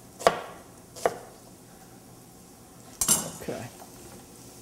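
Chef's knife chopping onion on a wooden cutting board: two sharp knocks about a quarter second and a second in. A short clatter near three seconds.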